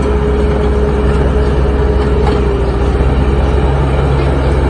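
Heavy diesel machinery engines running steadily, with a constant low drone and a steady whine above it.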